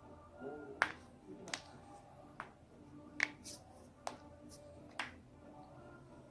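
Neck and back joints being cracked: a series of about six sharp pops roughly a second apart, the loudest near the start and in the middle, with a few fainter clicks between.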